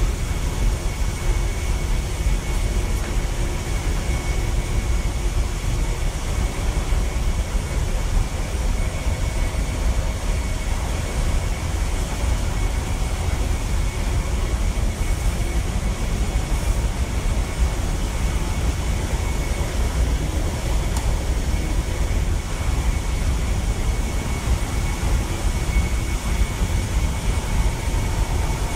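Steady machinery drone of a ship's engine room at sea, with the main engine and auxiliary machinery running, heard inside the engine control room: a deep rumble with a faint steady whine above it.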